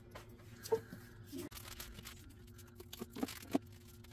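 Soft handling of paper craft supplies: cardstock and paper rustling with a few light taps and clicks as items are set into a plastic organizer, over a faint steady hum.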